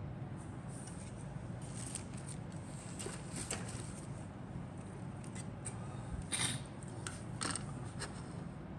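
Plastic model-kit sprues being handled and set down on a cutting mat: light scattered clicks and rustles, with two louder plastic clatters about two-thirds of the way through.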